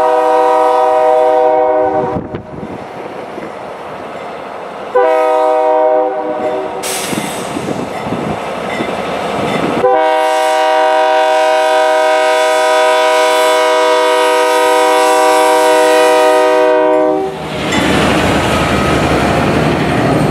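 Multi-note horn of a GE C40-8 (Dash 8-40C) locomotive leading a freight train. A blast ends about two seconds in, a short blast follows a few seconds later, and then a long blast is held for about seven seconds. The locomotives and hopper cars then pass close by, with a steady rush of engines and wheels on the rails.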